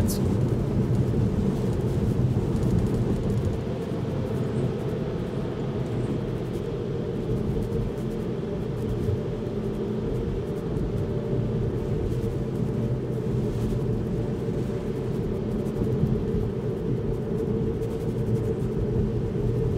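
Steady road and tyre noise inside the cabin of a Tesla Model 3, an electric car, driving on a rain-wet road.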